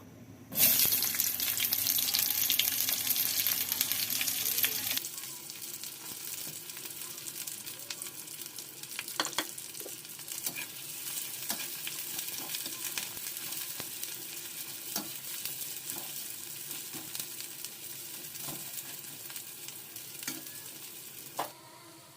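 Food sizzling in hot oil in a pan. A loud burst of sizzling starts under a second in and settles about five seconds in to a steadier, quieter sizzle, with scattered clicks and scrapes of stirring.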